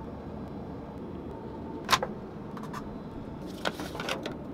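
Steady airliner cabin hum in the lavatory, with one sharp click about two seconds in. Near the end come a few clicks and a light metallic rattle as a hand pushes the stainless-steel swing flap of the lavatory trash bin.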